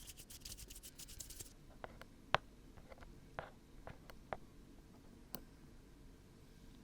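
Close-up handling sounds at the ear of a 3Dio binaural microphone: a rapid crackling for about a second and a half, then scattered small clicks and taps, the sharpest about two seconds in.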